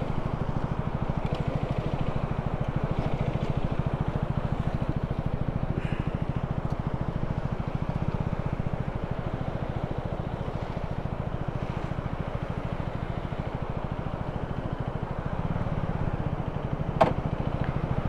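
KTM 250 Duke (third generation) single-cylinder engine idling steadily with a rapid, even pulse. A single sharp click near the end.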